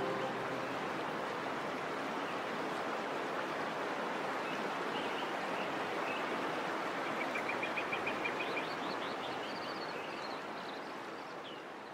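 Steady rush of running water with small birds chirping over it, including a quick run of chirps past the middle; the ambience fades down near the end.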